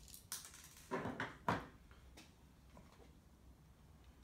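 A few short clicks and knocks from hard 3D-printed plastic parts being handled, the sharpest about a second and a half in.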